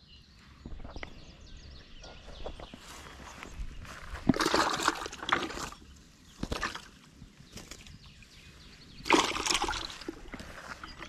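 Water splashing and sloshing in two bursts, about four seconds in and again about nine seconds in, as a small caught crappie is dropped into water; small knocks and rustles of handling come in between.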